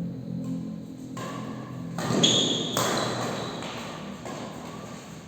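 Badminton rally in an indoor hall: a few sharp racket hits on the shuttlecock, the loudest about two seconds in with a brief high squeak, each echoing in the hall.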